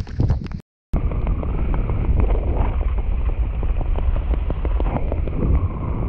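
Heavy wind buffeting a skydiver's camera microphone under an open parachute in high wind: a deep, continuous rumble full of irregular knocks, slowed down for slow-motion playback. It starts with a brief scraping rustle as the camera drags through grass, then cuts out for a moment.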